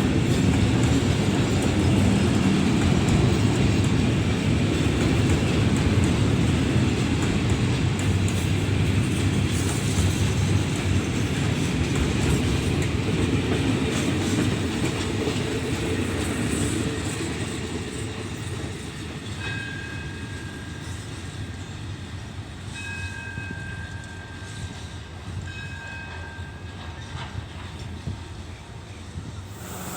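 A train running past on the rails: loud rumble with wheel clatter that fades away after about two-thirds of the way through. Near the end there are three short, faint high tones.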